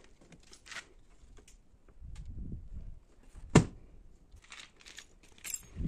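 Scattered light clicks, scrapes and low thuds of handling, with one sharp knock about three and a half seconds in.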